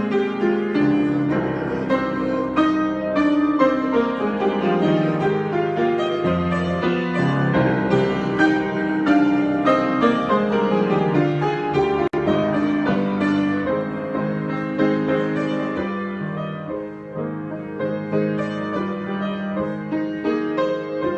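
Piano improvisation: a busy, continuous stream of notes and chords.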